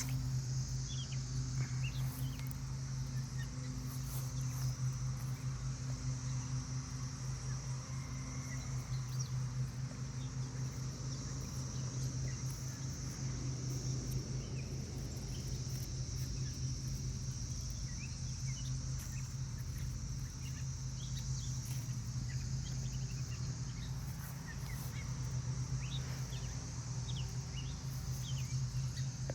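Outdoor garden ambience: a steady high insect drone with scattered short bird chirps over it, and a steady low hum underneath.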